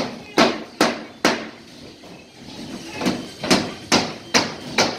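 Hammer blows driving nails into drywall: a run of four quick strikes about two a second, a pause, then another run of about five.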